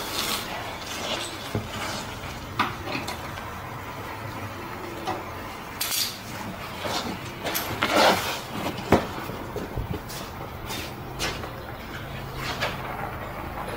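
Irregular metal clinks and knocks of hand tools and sway bar bushing hardware being handled under a truck.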